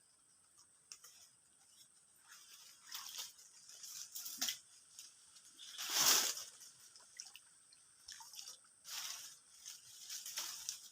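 Small irregular water splashes and drips from a fishing lure being cast and worked across the swamp surface, the loudest splash about six seconds in.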